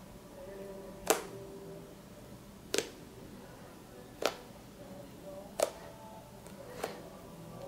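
Homemade fluffy slime being pressed and played with by hand, making five sharp pops spaced about a second and a half apart.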